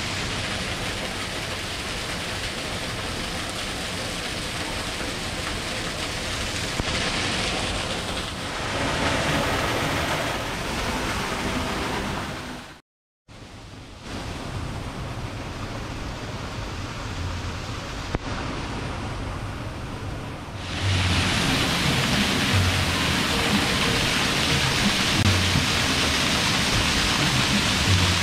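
Steady rush of a waterfall splashing down artificial rock-work, cutting out briefly near the middle and growing louder in the last third, with faint background music.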